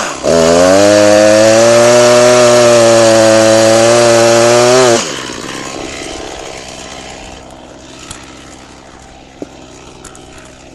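Echo CS490 two-stroke chainsaw held at full throttle for about five seconds, cutting into a log, its pitch dipping slightly under load. It then drops suddenly back to a quiet idle, with a few faint knocks later on.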